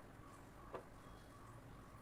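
Near silence: faint room tone with a steady low hum and one soft click about a second in.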